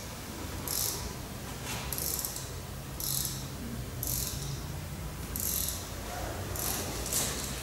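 Rhythmic scraping strokes, each a short high hiss, about one a second, over a low steady hum.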